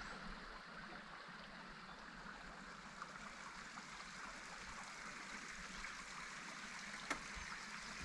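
Faint, steady trickle of a shallow stream running over stones.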